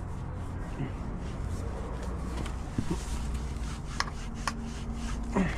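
Light handling sounds: faint rubbing and a few small sharp clicks over a low steady hum.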